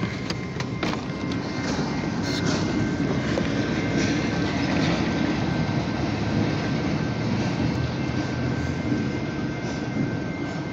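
Diesel locomotives of a light-engine train running, a steady low rumble.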